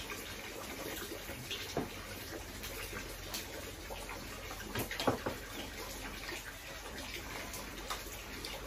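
Steady hiss of rain, with spoons and forks clinking on plates now and then during a meal; the loudest clink comes about five seconds in.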